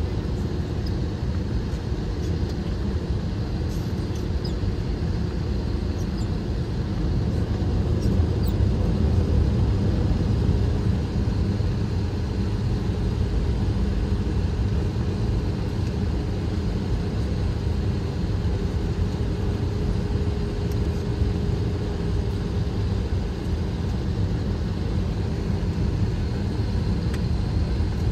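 Airbus A321 taxiing, heard from inside the cabin: the jet engines run steadily at taxi power under a low, even rumble, with a faint steady hum, a little louder about ten seconds in.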